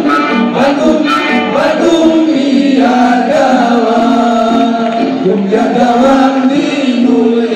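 Men's choir singing an Islamic kasidah song together, with long held notes.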